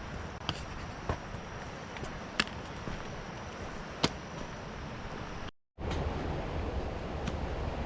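A few sharp knocks, such as footsteps on rock, over a steady rushing of wind and water. About five and a half seconds in the sound drops out completely for a moment, then the rushing comes back louder and deeper.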